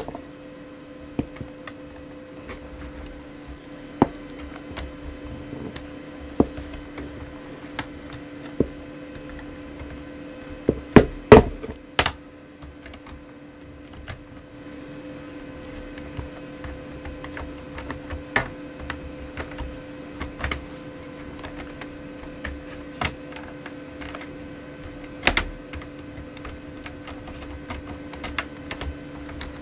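E-System Sorrento 1 laptop's plastic case being pried apart with a screwdriver and fingers: scattered sharp clicks and snaps of the casing, with a burst of the loudest snaps around the middle, over a faint steady hum.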